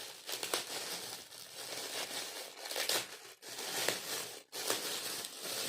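Gift wrapping being crumpled and torn open by hand, a run of crackling rustles and rips with two brief pauses.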